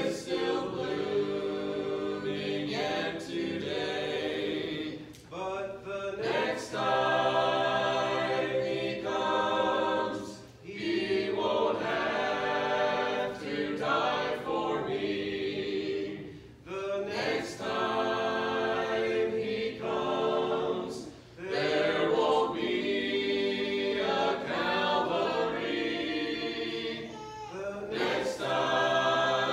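Small mixed vocal group of four men and a woman singing in harmony without instruments, in phrases of about five seconds with short breaths between.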